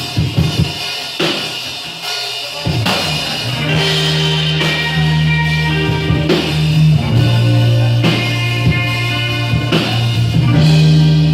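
Live rock band playing: drum kit hits, then about three seconds in sustained low bass notes and guitar come in under the drums.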